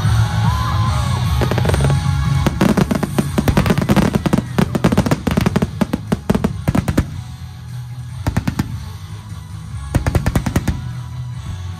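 Fireworks going off in rapid strings of bangs and crackles over music: a dense run for several seconds, then two shorter volleys near the end.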